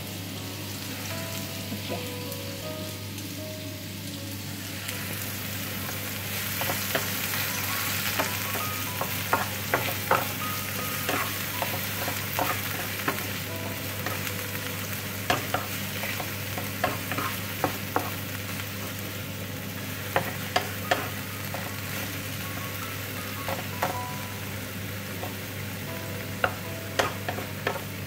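Oyster mushrooms and garlic sizzling in hot oil in a non-stick frying pan, starting about five seconds in. A wooden spatula stirs them and knocks against the pan at irregular intervals.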